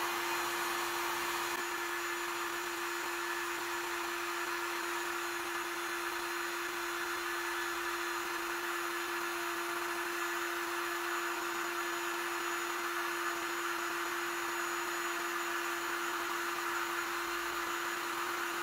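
Parkside PHLGD 2000 C4 digital hot air gun blowing at full airflow while it heats up: a steady rush of air from its fan with a constant hum underneath.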